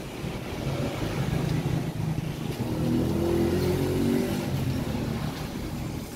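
Small electric gear motor of a nozzle-oscillating sprayer rig running and driving the crank linkage that swings the spray-nozzle arms back and forth. Its hum is steady, and its pitch wavers and rises for a while in the middle.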